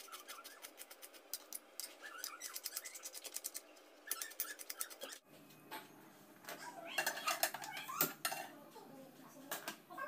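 Kitchen knife chopping onions on a plastic cutting board in fast, even strokes, several a second. About five seconds in this gives way to irregular knocks and clatter of frying pans on a gas stovetop.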